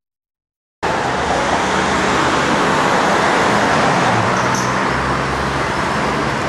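A moment of dead silence, then a steady loud rumbling noise with a faint low hum running under it.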